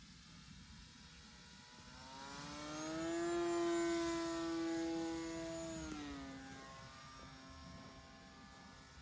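Electric motor and propeller of an E-flite Turbo Timber RC plane whining overhead. The pitch rises about two seconds in, holds steady at its loudest for about three seconds, then drops about six seconds in and the whine goes on more faintly.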